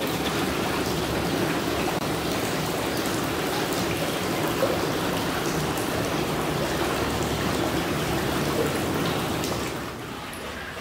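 Artificial rain shower of water spray pattering steadily onto the surface of a concrete broodfish tank, the kind of shower given to koi and shing brood fish to bring them to spawn. It gets quieter near the end.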